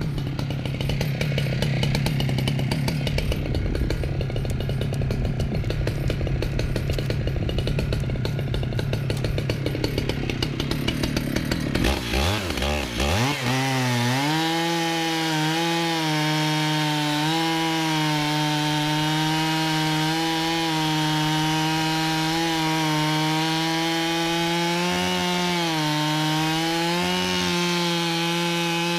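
Two-stroke chainsaw on a chainsaw mill running at high revs while ripping a log lengthwise into planks. For the first dozen seconds it sounds rough and loaded. About twelve seconds in the pitch dips and climbs back, and the saw then runs at a steady high pitch with small wavers.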